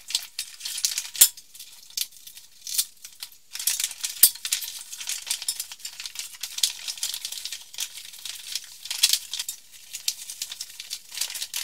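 Rustling and crinkling of a softbox's black fabric and silver reflective lining being handled and folded during assembly: a dense run of irregular, sharp crackles and small rattles.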